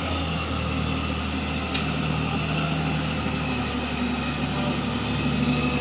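A vehicle engine running steadily at idle, with an even low hum.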